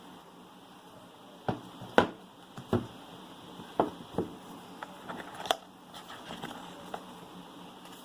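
Irregular sharp taps and clicks of a smartphone's box and packaging being handled during unboxing, about half a dozen knocks spread unevenly, the loudest about two seconds in.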